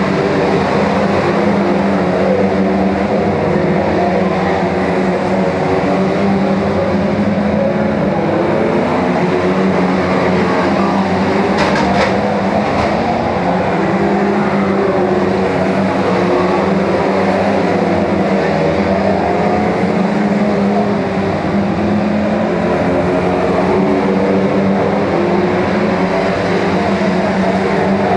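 A pack of saloon stock car engines running at high revs together, their pitches wavering as the cars race around the oval, with a short sharp noise about twelve seconds in.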